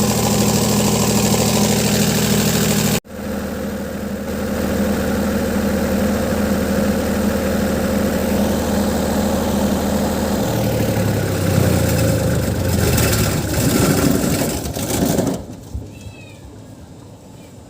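Old generator set's engine running steadily, then slowing unevenly from about ten seconds in and stopping about fifteen seconds in, as it is shut down.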